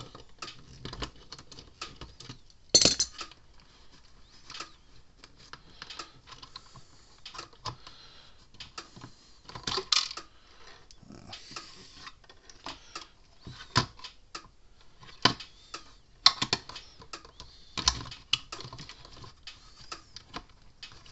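Irregular light clicks and metallic clatter of small hardware and hand tools being handled while a bolt and nut are worked onto a fence charger's capacitor mount. Several louder clacks are scattered through, the loudest about three seconds in.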